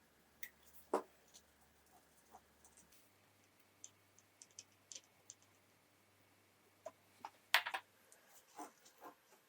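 Small, sharp clicks and taps of watchmaker's tools and parts being handled during watch reassembly, scattered and irregular, with a sharper tap about a second in and a quick cluster of clicks near the end.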